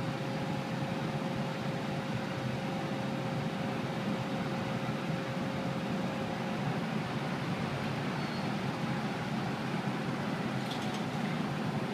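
Steady outdoor hum of machinery and traffic noise, with a faint steady tone that fades out about halfway through.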